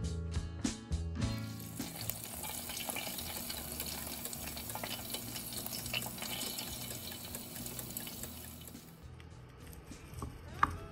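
Pork belly sizzling in an air fryer basket, a steady hiss with small crackles of spitting fat. Near the end a knife cuts through the roasted pork on a wooden board, with one sharp knock of the blade on the board. Strummed guitar music plays for the first second.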